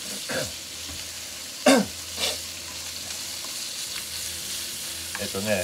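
Thin pork slices sizzling in a hot frying pan with a steady hiss, stirred with long wooden cooking chopsticks that scrape against the pan a few times. The loudest scrape comes about a second and a half in.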